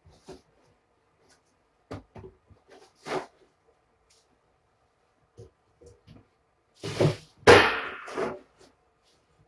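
Cats bumping and brushing against the camera and its microphone: scattered soft thumps and knocks, then a louder rub of fur against the microphone lasting about a second and a half near the end.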